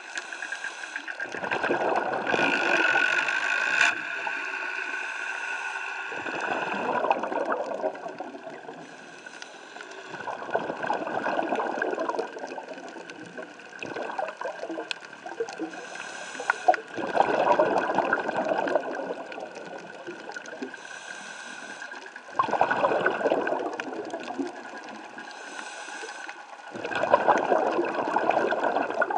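A scuba diver breathing underwater: six bursts of bubbling and hiss, about every five seconds, over a steady faint tone.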